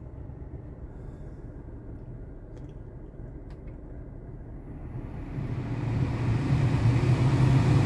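A Jaguar's climate-control blower fan being stepped up to full speed. Under a steady low hum, the rush of air from the dash vents starts to grow about five seconds in and keeps getting louder.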